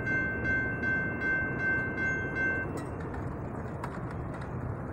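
Railroad crossing warning bell ringing steadily while the crossing gates rise, stopping a little over halfway through. A steady low noisy rumble runs underneath.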